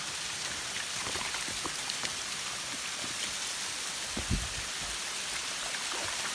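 Small low-flow waterfall splashing onto rocks into a shallow pool, a steady hiss of falling water with small splashes and clicks. A single low thump comes about four seconds in.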